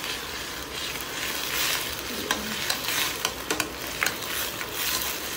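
Chopped capsicum, onion and spring onion sizzling in oil in a stainless steel kadhai on full flame, with a steady sizzle. A steel ladle stirs through them, giving scattered sharp scrapes and clicks against the pan.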